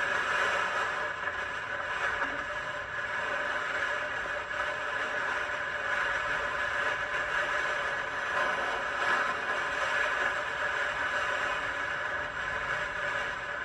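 Steady rushing noise of strong wind, with light scraping and rattling.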